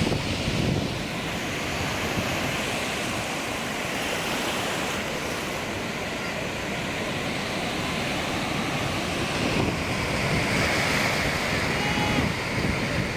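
Sea surf washing onto a sandy beach in a steady rush, with wind buffeting the microphone.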